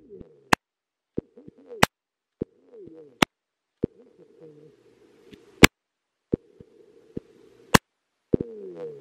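Pistol-grip Mossberg 600 AST pump-action shotgun fired five times in a row, the pump worked between shots with a short mechanical clack after each blast.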